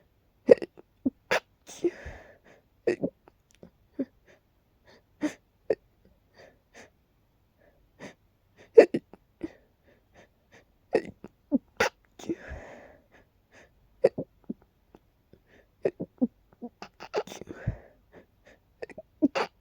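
A person in a fit of hiccups and sneezes: short, sharp vocal catches come every half second to a second, with a few longer, noisier sneezes or gasping breaths among them.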